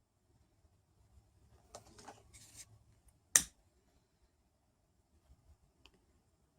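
Faint handling noises with a brief hiss about two seconds in, then one sharp click about three and a half seconds in.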